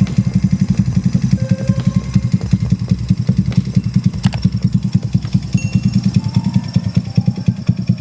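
Honda C70's small single-cylinder four-stroke engine idling with a steady, even exhaust beat.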